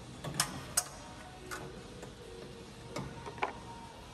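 Several sharp metal clinks, irregularly spaced, as a brake rotor is handled and slid onto a rusty wheel hub.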